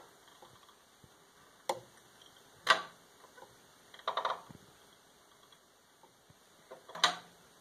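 A few isolated sharp clicks and small creaks, about four in all, from a hinge release, its D-loop rope and a bow scale being pulled straight back under heavy tension, about 70 to 80 pounds. The release does not fire.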